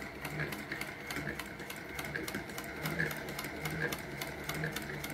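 Vintage Singer 201 sewing machine stitching steadily, an even, rapid ticking of the needle and feed mechanism over its low running hum.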